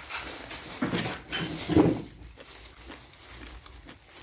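Plastic bag of peanuts rustling and crinkling as it is handled and opened. A short, louder low sound comes about two seconds in, then things go quieter.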